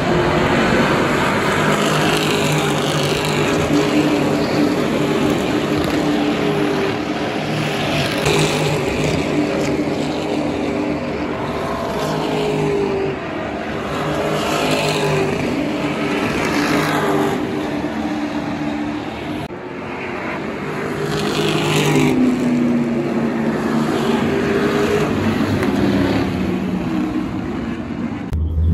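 V8 SuperUtes race utes accelerating past in a pack, their V8 engines running loud and steady. The engine note climbs and breaks off at each upshift, over and over.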